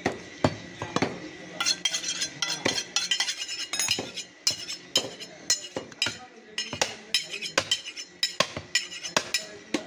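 Butcher's large knife cutting and chopping beef on a log chopping block: a quick, irregular run of sharp knocks and metallic clinks.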